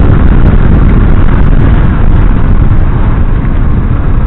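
Loud, steady wind rush on the camera microphone of a motorcycle riding at speed, with the rumble of the bike and its tyres on the wet road buried underneath.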